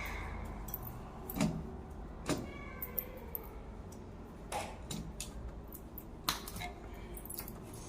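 Scattered clicks and knocks, about five in all, over a low hum: parts and tools being handled during work on a front-load washing machine.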